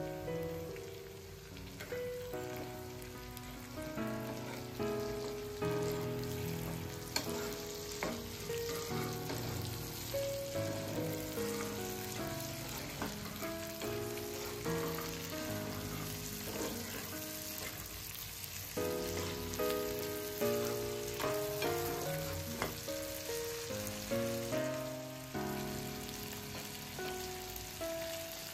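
Pork intestines, green chillies and tomato sizzling in an oiled wok, with the scrape and click of a spatula stirring them now and then. Background music plays a slow melody of single notes over the sizzle.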